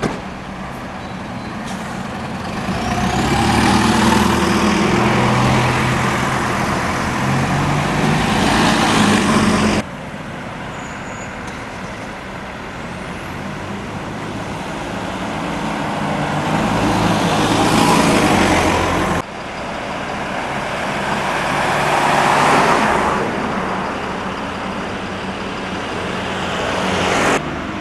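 Diesel bus engines pulling away and passing close by, heard in three separate takes. Each swells to a peak, the first with the engine note rising as it accelerates, and each ends with an abrupt cut. The buses are Arriva Optare Solo single-deckers and an Alexander Dennis Enviro400 double-decker.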